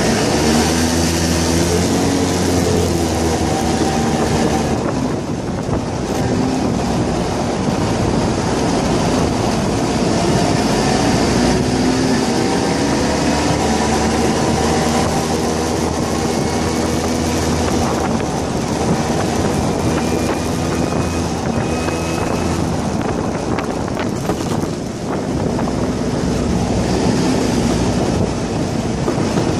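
Go-kart engine running as the kart drives along, its pitch rising and falling, with wind rushing over the microphone.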